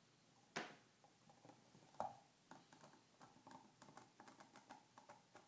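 Metal snips cutting into .025 aluminum sheet: faint short clicks and crunches as the blades close, with two sharper snips about half a second and two seconds in, then a run of small clicks.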